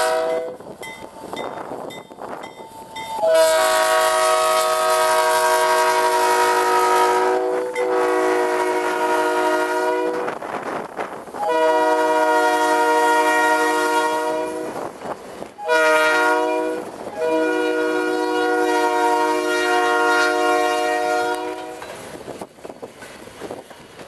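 Diesel freight locomotive's air horn, several notes in a chord, sounding long blasts, then a short one and a final long one: the grade-crossing signal, as the locomotives pass close by. After the horn stops near the end, only the rumble of the passing train is left.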